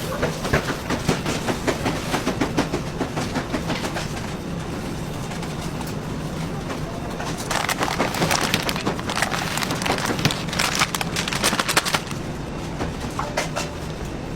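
Bakery production-line machinery running with a steady hum and fast, dense clattering and rattling. The clatter grows louder from about halfway through and drops back near the end.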